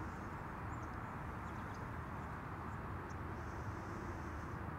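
Steady outdoor background noise, with a few faint high chirps over it.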